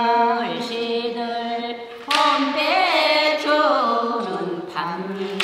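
Elderly Korean women singing a traditional folk song unaccompanied, with long held, wavering notes and slides between pitches. A new phrase starts about two seconds in and another near the end.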